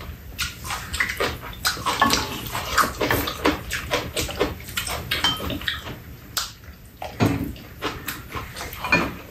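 Mukbang eating sounds from two people eating stir-fried chicken: wet chewing, slurping and smacking in a dense, irregular run of short clicks, with spoons and chopsticks now and then tapping the dishes.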